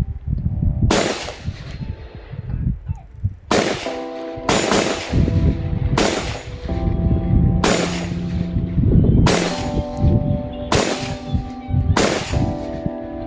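PSA AR-15 rifle fired semi-automatically: eight single shots spaced about one to two and a half seconds apart, each with a ringing tail, over background music.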